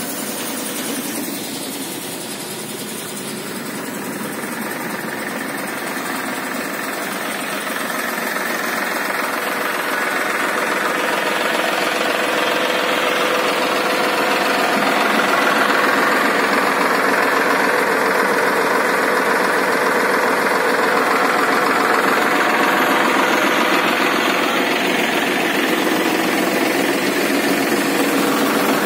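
Tractor engine running steadily, driving a paddy cleaner. It grows gradually louder over the first half.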